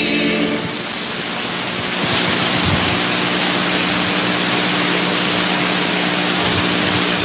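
A sung hymn cuts off within the first second, then a steady loud hiss runs on with a faint low steady hum beneath it.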